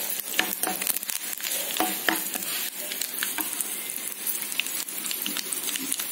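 Hot oil sizzling and crackling in a pan as a tadka of mustard seeds, curry leaves and dried red chillies fries with turmeric, stirred with a slotted metal spoon. The crackle is dense, with many sharp pops throughout.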